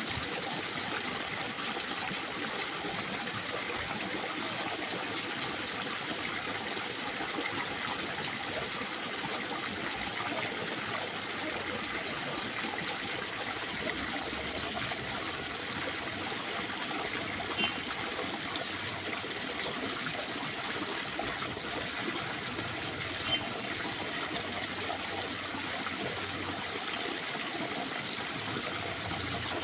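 Steady rush of flowing water, even and unbroken, with two faint short high-pitched blips in the middle.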